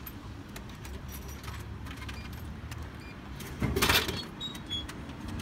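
Steady low rumble of street traffic with scattered small clinks, and a short loud rushing burst about three and a half seconds in.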